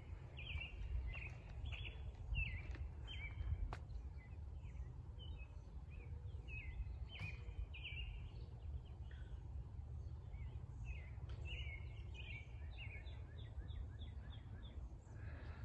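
Eastern grey squirrel barking: a long run of short, sharp calls, coming quicker, about four a second, near the end, over a steady low rumble.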